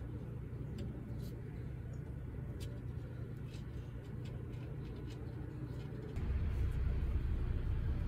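A steady low rumble that gets louder about six seconds in, with faint small ticks of fingers handling wire pin terminals.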